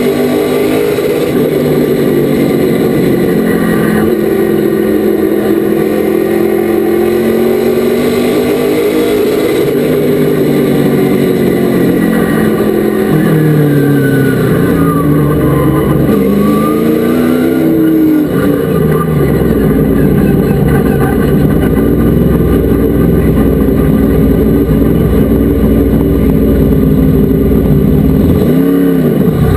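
Race truck engine running hard at racing speed, its pitch dropping and climbing again as it slows for the turns and accelerates back out.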